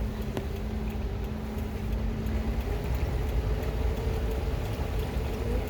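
Car running at low speed: steady low engine and road rumble with a steady hum.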